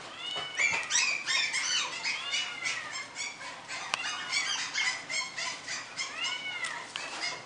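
Several young pets crying at once: many short high-pitched cries that rise and fall in pitch, overlapping, several a second.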